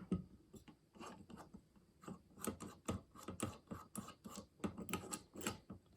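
Handling noise from rotating a ZWO ASI2600MC Pro camera on an Askar M54 off-axis guider to line up the sensor's orientation: a string of small clicks and scrapes, busier from about two seconds in.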